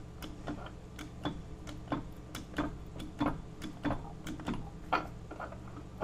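Hand pump of an HY-20 hydraulic bolt cutter being worked stroke after stroke, clicking about three times a second as the hydraulic ram drives the jaws into a hardened boron-carbide padlock shackle.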